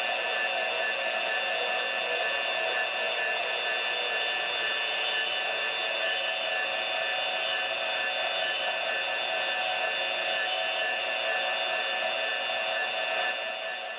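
Bosch GCB10-5 portable deep-cut band saw running and cutting metal, a steady motor whine, dipping briefly near the end.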